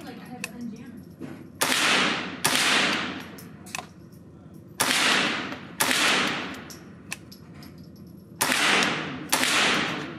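Smith & Wesson M&P 15-22 .22 LR rifle fired in three pairs of shots, the two shots in each pair about a second apart. Each shot rings out with the long echo of an indoor range. Fainter single cracks are heard between the pairs.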